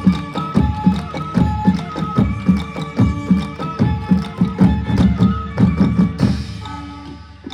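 Manipuri traditional drumming: fast, dense drum strokes with deep thuds and ringing pitched notes above them. The heavy drumming thins out about six seconds in, leaving lighter strokes and held notes.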